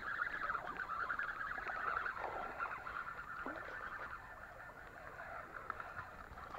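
Spinning reel being cranked to wind in a hooked catfish, a steady whirring with a fine rapid ticking from the reel gears that eases off about halfway through.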